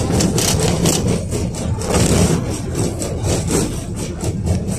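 KTM-5 (71-605A) tram running along the track, heard from inside the car: a steady low rumble of wheels and running gear with rapid rattling and scraping clicks.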